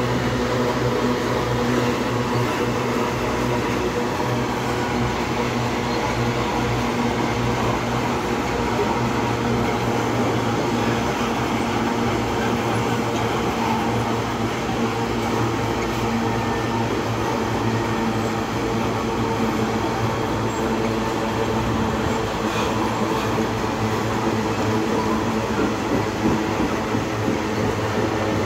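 Loaded iron-ore gondola wagons of a long freight train rolling past, a steady, unbroken rumble of steel wheels on the rails.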